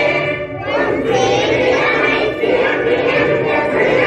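A large group of schoolchildren singing a prayer together in unison, with a brief break between phrases about half a second in.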